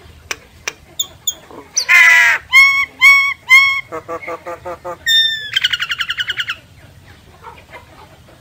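Myna (sáo) calling, a lure call: first a few sharp clicks, then a harsh squawk about two seconds in, three clear whistled notes, and two bursts of rapid chattering that stop a couple of seconds before the end.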